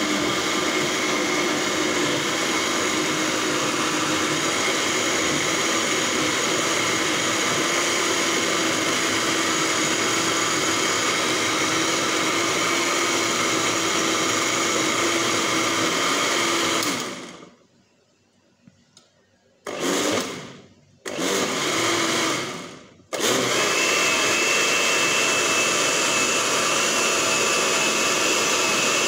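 Electric countertop blender with a plastic jar, running steadily as it blends banana, milk and honey into a milkshake. About two-thirds of the way through it winds down and stops, is pulsed in two short bursts, then runs steadily again.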